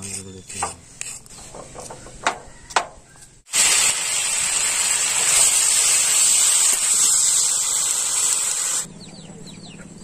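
Pieces of goat head meat sizzling as they are stir-fried with spices in a metal kadai, a loud steady hiss that starts suddenly about three and a half seconds in and cuts off abruptly about a second before the end. Before it come a series of sharp clicks and scrapes.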